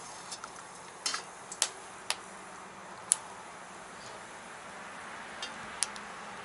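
Metal ladle scraping and clinking against a copper pot while stewed beef shank is scooped out of the broth: a handful of sharp, irregularly spaced metal taps.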